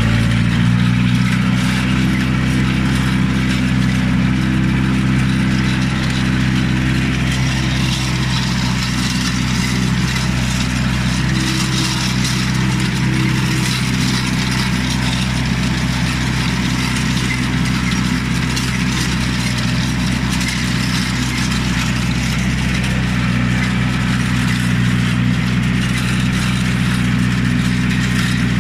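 Iseki TA 295 compact tractor's diesel engine running at a steady speed while driving a rotary hay tedder, with a constant hiss over the even engine note.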